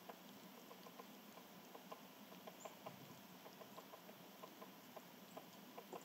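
Near silence: faint, irregular light ticks, several a second, with one brief high chirp about two and a half seconds in.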